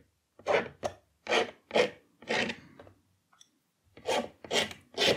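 Scratching into watercolour paper: a run of short rasping strokes, roughly two a second, with a pause about midway.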